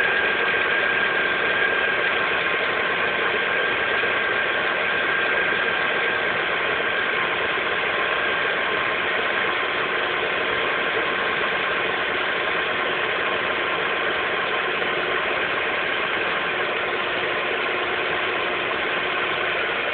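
Lada Priora 2's VAZ-21127 1.6-litre sixteen-valve engine idling cold with a steady knock and a high whine; the owner does not know the cause of the knock on a car with only 5,000 km.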